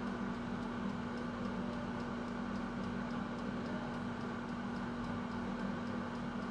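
Rapido air fryer running with its convection fan and heater on, a steady low hum with faint regular ticking over it.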